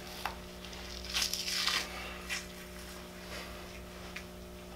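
Fat being peeled by hand off the muscle of a skinned whitetail deer carcass: soft, wet tearing and squishing, strongest for about half a second a little over a second in, over a steady low hum.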